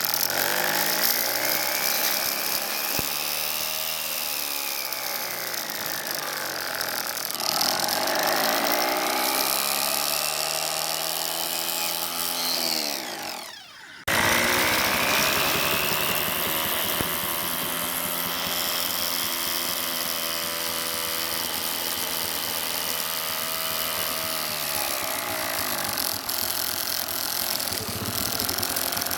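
Small DC electric motor whining as it spins up and winds down three times; the second run stops abruptly about halfway through.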